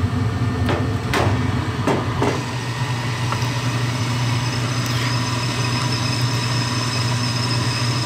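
Gas furnace running with its burners lit: a steady hum of the draft inducer motor and burner noise. A few short knocks come in the first couple of seconds.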